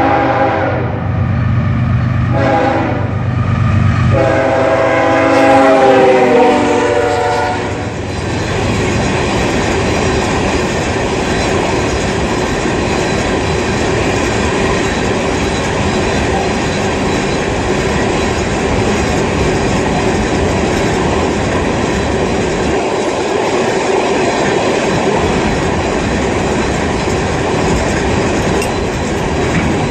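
Diesel locomotive's multi-tone air horn sounding two long blasts, with a short break between them, ending about eight seconds in as the engine passes. Then a unit train of empty aggregate cars rolls steadily past on the rails.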